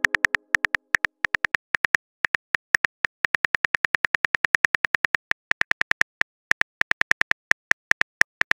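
Phone keyboard key-tap clicks, a quick irregular run of short ticks, about seven a second with brief pauses, as a text message is typed out.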